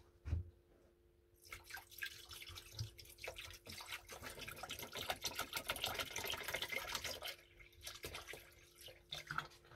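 Rust-treatment solution poured from a plastic bottle into a plastic tub, a splashing, trickling pour that starts about a second and a half in and tails off near the end.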